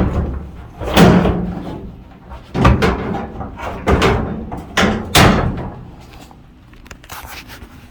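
Clunks and knocks of a dryer cabinet part being lifted out and moved: about five loud hits in the first five seconds, then quieter handling.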